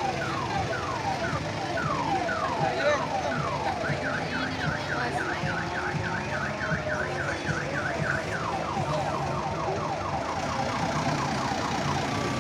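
Electronic siren cycling through its patterns: repeated falling wails about three a second, then about four seconds of quicker down-up yelps, then falling wails again that fade near the end.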